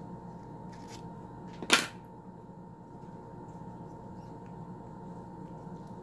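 One sharp snip of scissors cutting through a leathery ball python eggshell, about two seconds in, over a steady background hum.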